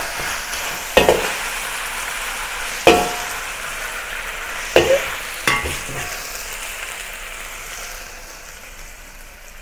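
Oil sizzling in a hot carbon-steel wok as stir-fried beef strips are pushed and scooped out with a metal wok spatula, the spatula scraping and clanking against the wok four times. The sizzle slowly dies away toward the end.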